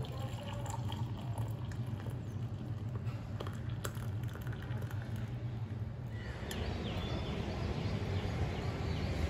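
Hot milk tea trickling through a tea strainer into a ceramic mug. About six seconds in, this gives way to steady rain falling outdoors, with a few bird chirps.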